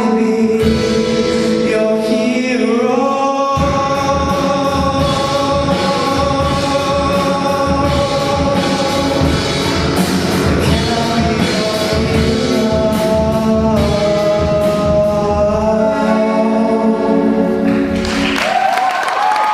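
Student rock band playing the closing bars of a song live, several voices singing long held notes over a steady drum beat. The music stops near the end and applause starts.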